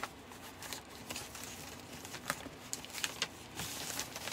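Paper rustling and crinkling as a printed shipping label is handled, with a few light clicks and taps.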